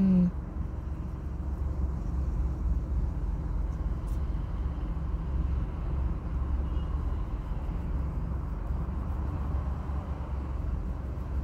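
Steady low rumble inside a car's cabin, the engine idling while the car waits at a red light.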